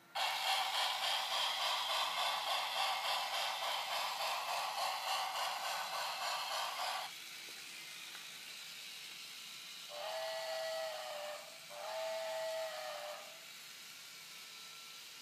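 Electronic steam sound effect from a battery-powered Brio toy train: a pulsing, chuffing hiss for about seven seconds, then two whistle toots about ten and twelve seconds in.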